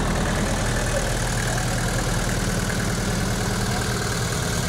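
Mercedes-Benz Unimog truck engine idling steadily.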